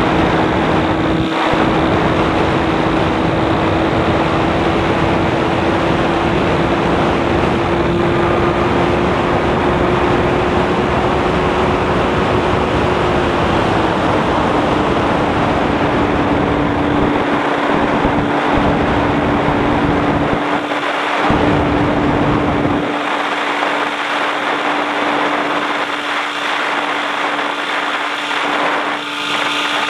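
Light aircraft's engine and propeller droning steadily in flight, with rushing wind noise. The engine note eases down slightly about halfway through, and the low rumble of wind drops away near the end.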